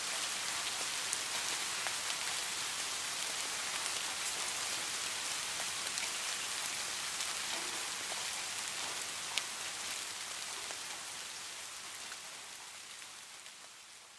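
Steady rain falling, a fine hiss with scattered drops ticking, one sharper about nine seconds in. It fades out over the last few seconds.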